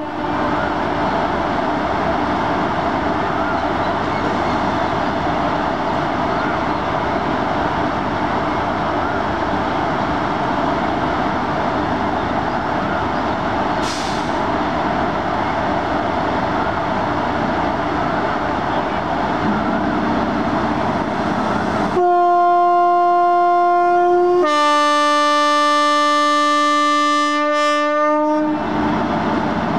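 WAG-5P electric locomotive pulling away slowly with a steady running hum. About two-thirds of the way through, its horn sounds for about six seconds: a higher note that drops to a lower one, louder than the running noise.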